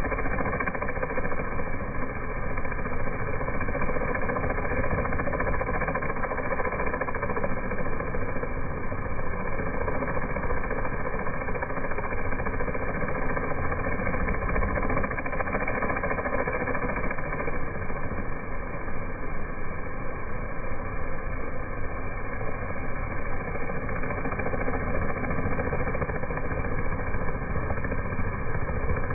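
Pressure washer running steadily: a constant engine drone together with the wand's high-pressure spray hitting asphalt.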